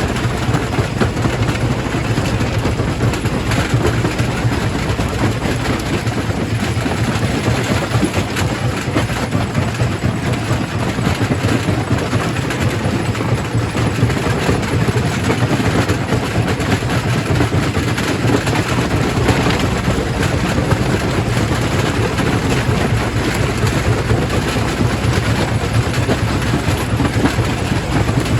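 Quarry primary rock crusher running and breaking rock: a loud, steady, grinding noise over a low hum, with no let-up.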